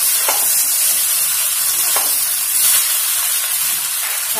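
A spatula stirring pulao in a metal pot, with a steady sizzling hiss of frying and a few scraping strokes against the pot.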